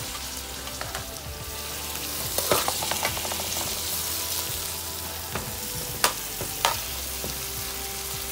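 Onion, tomato and ginger sizzling in hot oil in a metal pan as they are stirred, a steady hiss with a utensil clicking and knocking against the pan: a quick run of clicks about two and a half seconds in and two sharper knocks near six seconds, the first of these the loudest.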